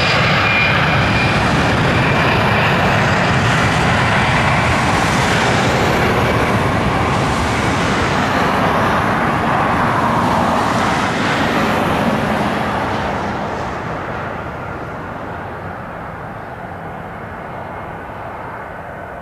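Airbus A320's twin jet engines at takeoff thrust during the takeoff roll: a loud, steady jet noise with a thin high whine at first, fading and growing duller from about thirteen seconds in as the airliner races away down the runway.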